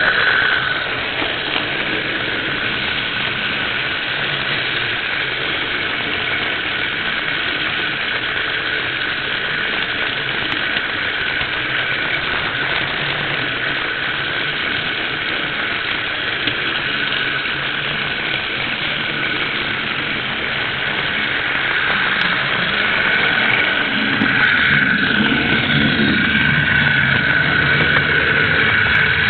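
Model train running along the track, heard from a camera riding on it: a steady motor and gear whine over wheel rumble, growing somewhat louder near the end.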